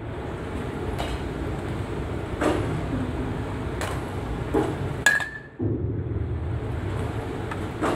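Metal baseball bat hitting a pitched ball, a sharp ringing ping about five seconds in. Several lighter knocks and a steady low rumble run around it.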